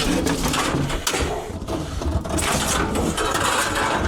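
Scrap metal being forced into a tight gap in a loaded truck bed: continuous scraping, grinding and rattling of metal against metal as the item is shoved and worked into place.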